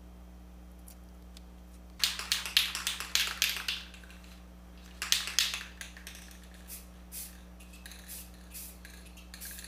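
Aerosol spray can being shaken by hand, its mixing ball rattling in quick bursts of about four to five clacks a second. The bursts start about two seconds in, pause briefly, then resume, and turn into slower, fainter single clacks in the second half.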